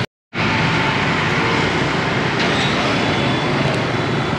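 Scooter and motorbike traffic on a city street: a steady mix of small engines and road noise, broken by a brief total silence just after the start.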